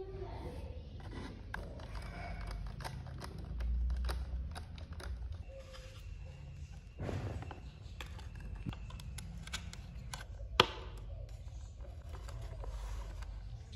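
Hands handling and fitting together the painted parts of a homemade model excavator arm: scattered light clicks, knocks and rubbing, with one sharp click about three-quarters of the way through.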